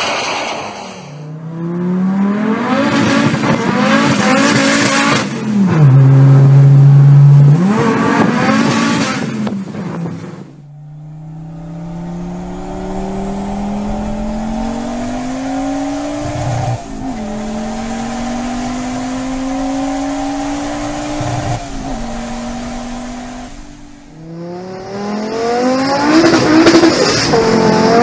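Fiat car engine revved hard while standing, its pitch rising and falling several times and held steady for a moment. Then, heard from inside the cabin, the engine accelerates through the gears, its pitch climbing with a drop at each upshift.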